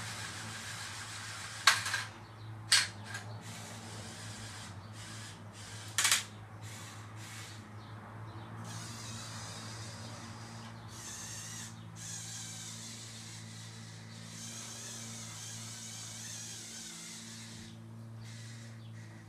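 Small electric motors and gearing of a remote-controlled LEGO Technic crane running steadily as the boom is raised. Three sharp clicks come in the first several seconds.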